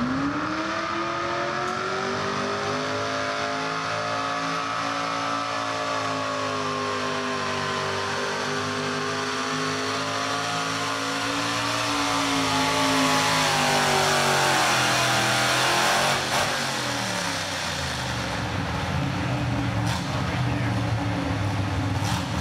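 Mini two-wheel-drive pulling truck's engine at full throttle hauling the sled: the pitch climbs right at the start, holds high with slight wavering and grows louder toward the end of the pull. About 16 seconds in it drops off sharply as the throttle is let off, settling to a lower steady run.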